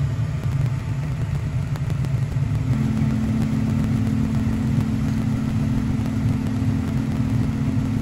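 Lennox gas furnace running with its burners lit: a steady low rumble, joined about three seconds in by a steady hum.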